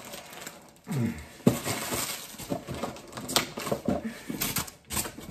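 Thin plastic mailer bag being torn and crinkled open by hand, a dense rustling with many small crackles and clicks as the packaging is pulled apart.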